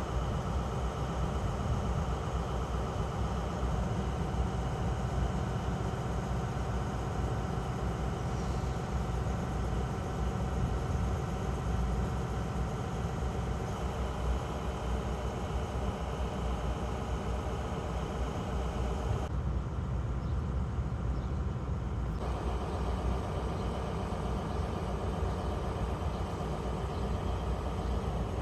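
Steady low rumble and hum of a passenger train. The higher part of the sound drops away for a few seconds about two-thirds of the way through.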